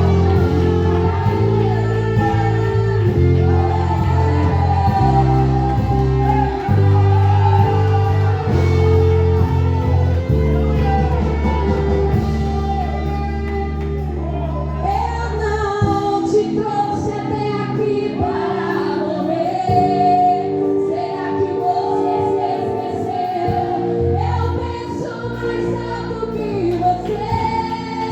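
Live Christian worship song: singing over a band with steady bass notes. The low bass drops out a little past halfway and comes back near the end.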